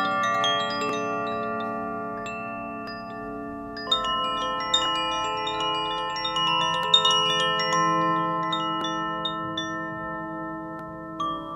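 Koshi chimes tinkling in clusters of many quick pings, at the start, again about four seconds in and near the end, their notes ringing on and slowly fading over low steady ringing tones.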